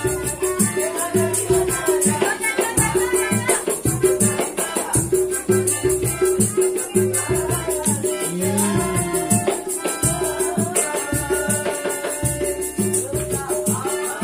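Street buskers playing a melodica over a steady percussion beat with a shaker-like rattle, a held melodica note running under a moving melody.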